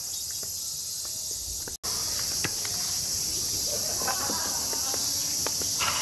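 Cicadas' steady high-pitched drone from the surrounding trees in summer heat, cutting out for an instant just under two seconds in.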